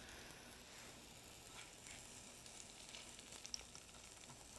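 Tuna cakes sizzling faintly in olive oil in a nonstick frying pan, with a few light ticks as they are turned with a spatula and fork.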